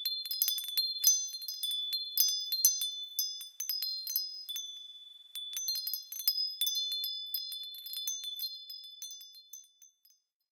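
Wind chimes ringing in irregular, overlapping high-pitched strikes. They ease off briefly about halfway, pick up again, and die away near the end.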